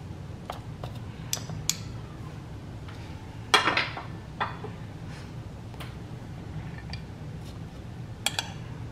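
A metal spoon clinking and scraping against small dishes while spooning sweetened beans onto shaved ice. There are a few scattered light clinks, the loudest about three and a half seconds in, over a low steady hum.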